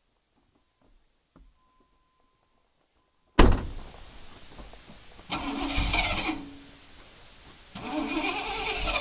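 Near silence for about three seconds, then a Chevy Suburban's engine comes in suddenly and is revved twice, each rev lasting about a second, as the 4x4 truck is backed onto a log to lever it up.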